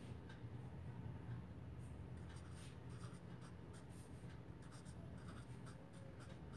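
Felt-tip marker scratching faintly on paper in short, quick strokes as numbers are written, over a low steady hum.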